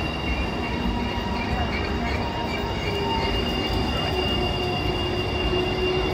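Low-floor electric tram rolling past at close range: the rumble of wheels on rail, with a steady high-pitched whine running over it.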